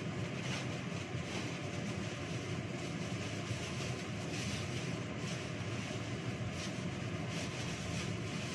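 Plastic bags crinkling in short bursts every second or so as they are handled, over a steady low mechanical hum.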